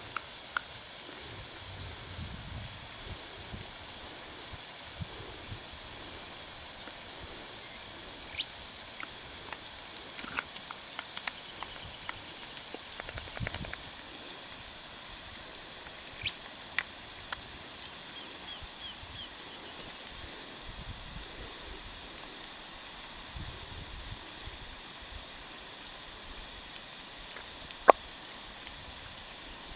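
Steady high hiss of water spraying under pressure from a leaking bore pipe, with a few soft splashes in the puddle below. One sharp click near the end.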